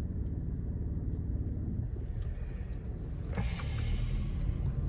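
Car cabin noise: the steady low rumble of a car on the road, heard from inside, with a fainter rushing sound building about three seconds in.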